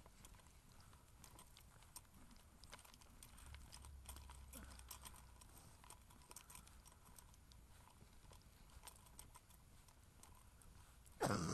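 Faint, irregular footsteps and taps from walking on a lane. A short, much louder sound comes near the end.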